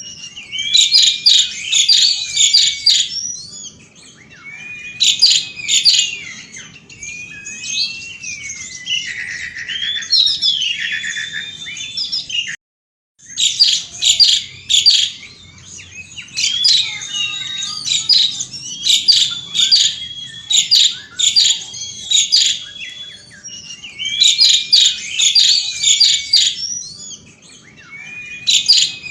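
Asian pied starling (jalak suren) singing vigorously: loud bouts of rapid rattling, chattering notes mixed with gliding whistles, a new bout every few seconds. The sound cuts out completely for about half a second near the middle.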